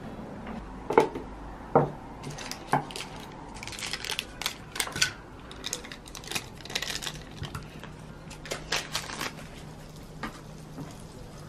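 Light knocks and clinks of small hard objects being handled: three sharper knocks about a second apart near the start, then a quicker run of clicks and clatter through the middle.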